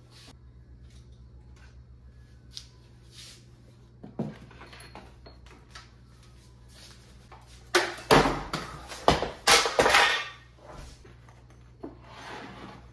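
Small desk items being picked up, moved and set down, with light clicks and knocks and a burst of loud clattering and knocking about eight seconds in as things are cleared off the desk.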